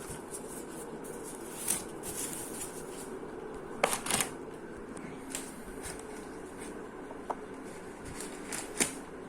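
Rustling and handling of product packaging, with scattered short clicks and light knocks, the loudest about four seconds in and another near the end.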